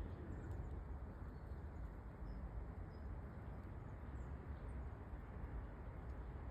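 Steady storm wind rushing over the microphone, with a low rumble.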